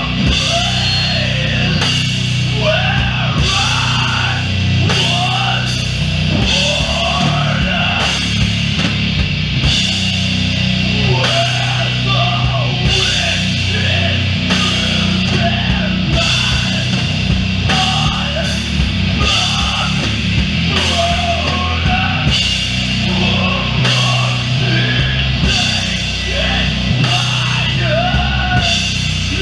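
Live doom metal band playing heavy, distorted guitars and bass at a slow tempo, with drum hits landing about once a second. A wavering melodic line runs over the dense low end.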